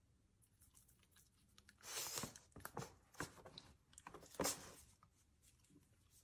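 A puppy biting and chewing at a plastic dog toothbrush held to its mouth: a few short bursts of crunching and clicking, the loudest about two seconds in and again past four seconds.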